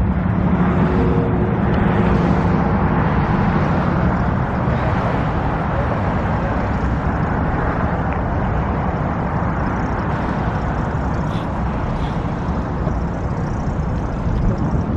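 Steady road traffic passing close by, with a vehicle engine droning over the traffic noise in the first few seconds.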